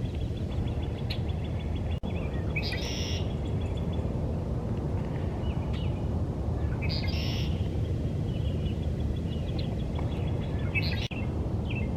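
Male red-winged blackbird singing its song three times, each a short burst of notes followed by a buzzy trill, about four seconds apart. Steady low background noise runs underneath.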